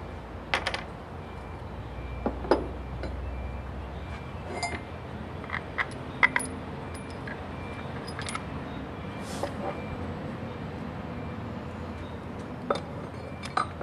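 Bolts, wedge washers and a backing ring being handled and fitted by hand to a flange: scattered light metallic clinks and taps, about one every second or two.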